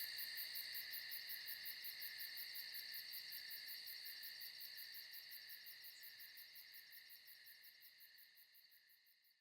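Crickets chirping in a steady pulsing trill, a night ambience that fades out gradually to silence.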